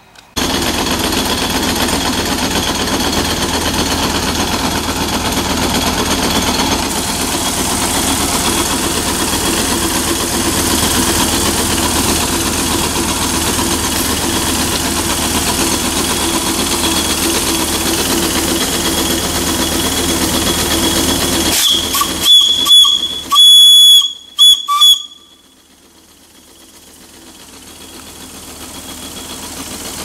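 Miniature steam donkey's vertical boiler hissing steadily with escaping steam. About 22 seconds in its small steam whistle gives several short, loud, high-pitched toots, then the sound drops off sharply.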